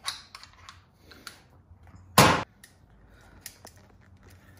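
Small clicks and clinks of tools and motorcycle fork parts being handled on a workbench, with one short, loud, hissing-clattering burst about two seconds in.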